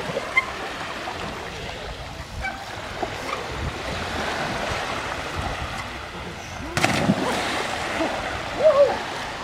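Sea waves washing along the shore in a steady rush, with a sharp knock about two-thirds of the way in and a couple of brief squeaky sounds near the end.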